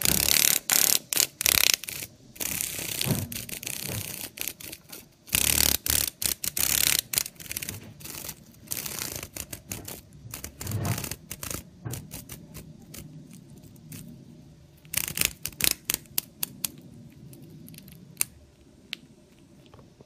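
A captured cicada buzzing in loud, rattly bursts while a katydid eats it: the distress buzzing of a struggling cicada. The bursts come in irregular spells a few seconds apart, with softer ticking between and a quieter stretch near the end.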